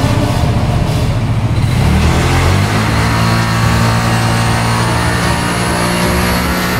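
Yamaha NMAX scooter's single-cylinder engine at wide-open throttle on a chassis dynamometer, driving through its stock CVT. The engine note climbs about two seconds in and then holds at high revs, with a thin high whine rising in pitch through the second half.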